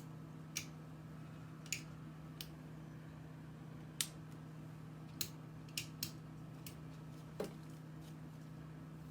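Slime being played with, giving about nine sharp clicks and pops at irregular intervals over a steady low hum.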